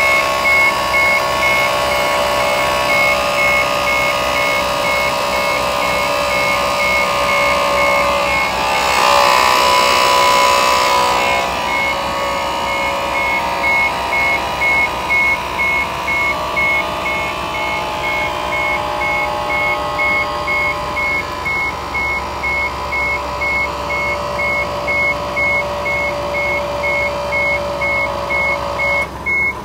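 A truck's electronic warning beeper sounding in a steady repeating high-pitched beep, over several steady humming tones.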